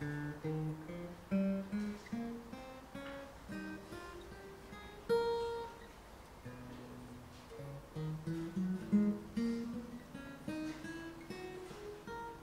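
Acoustic guitar playing scales: single notes picked one at a time, stepping upward, dropping back to the low notes about halfway through, then climbing again.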